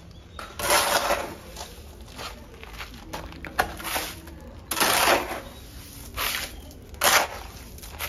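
Rough scraping and crunching strokes of gravelly concrete mix being worked by hand, in irregular bursts; the loudest come about a second in, near the middle and about seven seconds in.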